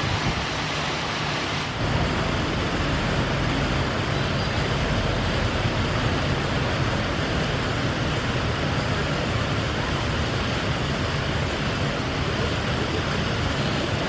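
Steady rush and splash of water in a concrete fountain basin, with a low steady rumble underneath. The sound changes abruptly about two seconds in, then holds even.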